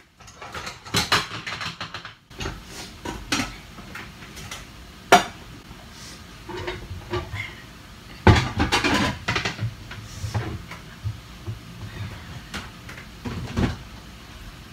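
Spatula scraping and knocking against a stainless steel mixing bowl as cake batter is poured out into a metal tube pan: scattered clinks and scrapes, the sharpest about five and eight seconds in.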